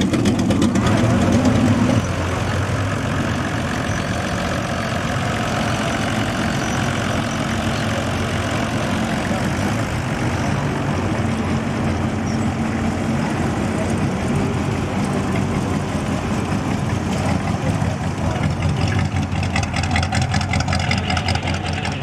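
A hot rod's engine idling loudly for about two seconds. Then, after a cut, a Jeep-bodied rat rod's exposed engine idles steadily and gets rougher and more pulsing near the end as the car moves off.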